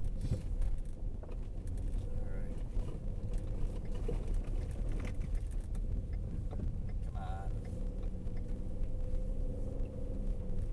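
Steady low rumble of a vehicle driving, heard from inside the cab, with a constant hum, scattered light clicks and a brief wavering tone about seven seconds in.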